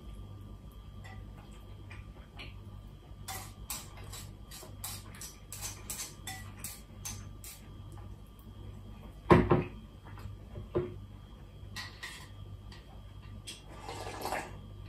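A person eating udon noodles with chopsticks from a handheld bowl: a run of short clicks and slurps, one loud knock about nine seconds in and a smaller one soon after, then a brief slurp of broth near the end as the bowl is tipped to the mouth.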